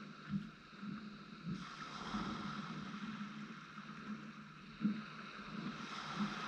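Wind buffeting the microphone in irregular gusts over a steady wash of small waves breaking on the beach.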